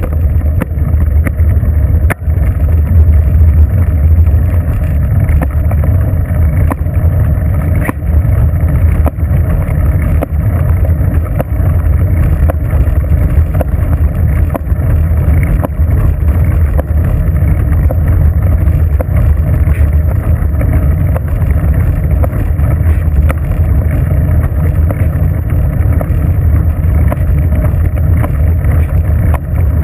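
Steady low rumble of wind buffeting the microphone of a bicycle-mounted GoPro camera as the bike rolls along a paved road.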